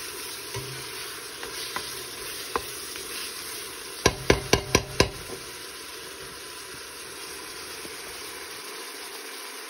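Ground beef sizzling steadily as it browns in a stainless steel stockpot, with a spoon stirring it. About four seconds in, the spoon knocks sharply on the pot five times in quick succession.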